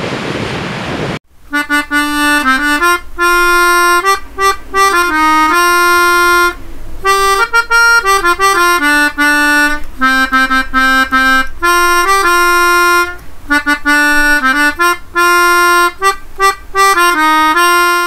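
Wind and surf noise on the microphone for about the first second, then a sudden cut to instrumental music: a bright melody of held notes over chords, with an accordion-like tone.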